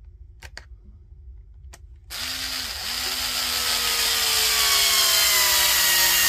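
Power drill-driver spinning a long screw into the plastic case of a cordless tool battery pack. After a few light clicks, the motor starts about two seconds in and runs steadily, its pitch slowly falling as the screw drives home.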